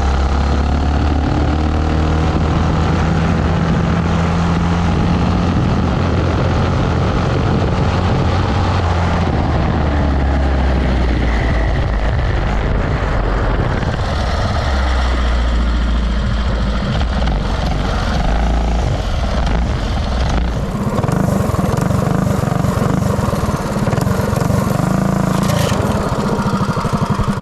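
A Predator 212 single-cylinder four-stroke engine on a home-built mini bike running hard at high revs during a high-speed run, its pitch rising and falling with the throttle. About twenty seconds in the engine note drops and turns rougher and choppier as the bike slows.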